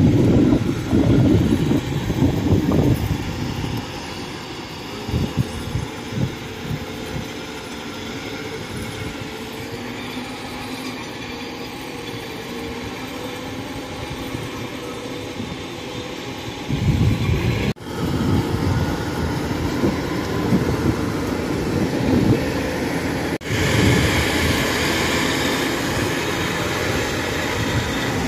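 Kubota DC95GM combine harvester's engine running steadily as the machine travels on its crawler tracks through a muddy rice field, louder at the start and again through the last third. The sound drops out very briefly twice in the second half.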